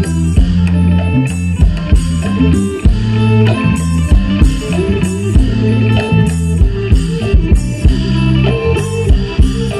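Isan pong lang folk band playing live: a melody over drums and cymbals with a steady beat.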